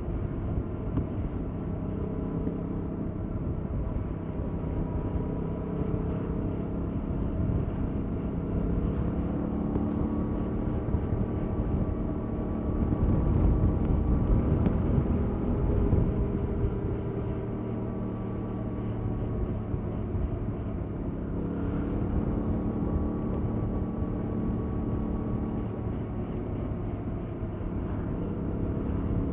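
Yamaha MT-07's 689 cc parallel-twin engine with its stock exhaust, running under way. The revs rise and fall repeatedly, and it is loudest under acceleration around the middle.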